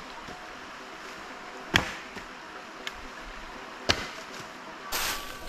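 Dry firewood sticks landing with two sharp knocks about two seconds apart, then a rustle of dry leaf litter near the end.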